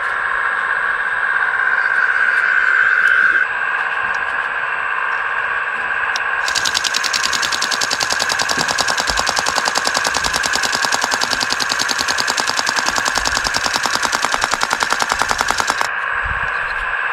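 Steady high whine of a small electric motor and hydraulic pump on an RC scale construction model, easing a little about three and a half seconds in. About six seconds in, a fast, even mechanical rattle of rapid strikes joins it for about nine seconds, then stops suddenly.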